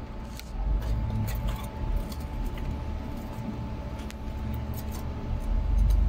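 Low rumble of a phone being handled and moved, with scattered light clicks and clinks and a faint steady hum.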